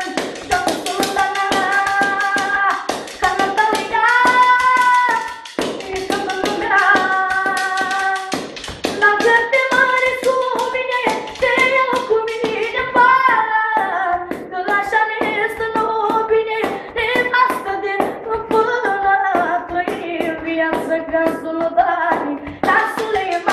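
A teenage boy singing a manele melody without instruments, in a high voice with long held notes and ornamented bends and slides. A fast rhythm of taps runs underneath.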